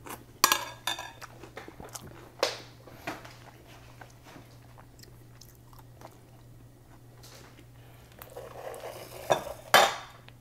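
A person chewing a mouthful of cut-up brownie pieces eaten from a ladle, with a few sharp clinks of the metal ladle against a large glass bowl. Near the end the glass bowl scrapes across a stone countertop and knocks twice as it is pushed aside, all over a low steady hum.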